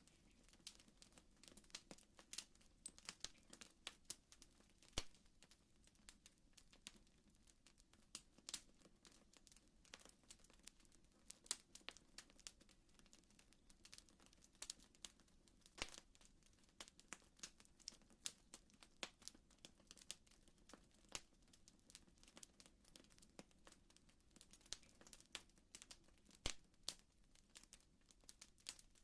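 Faint crackling fire: irregular snaps and pops, several a second, over a low steady rustle.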